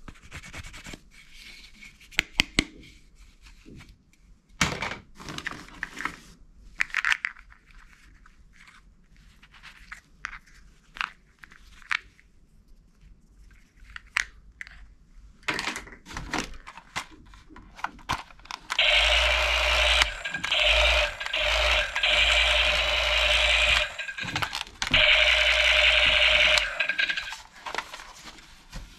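Small hard-plastic toy weapon accessories clicking, knocking and scraping as they are handled in a cardboard box. About two-thirds of the way through, a loud steady buzzing noise with a low hum starts. It breaks off briefly a few times and lasts about eight seconds.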